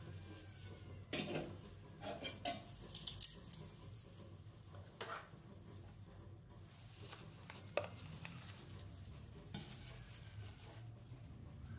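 Metal tongs clicking and scraping on the steel plate of a rolled ice cream machine as the rolls are gripped and lifted, in a handful of scattered sharp knocks. A steady low hum lies underneath.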